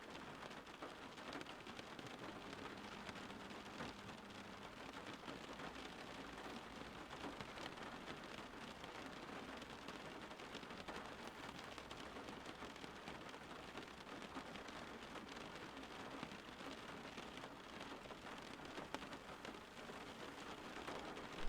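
Light, steady rain falling on leaves, a soft even patter of many small drops.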